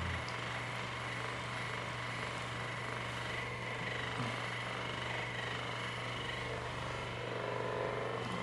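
A small motor running with a steady low buzz.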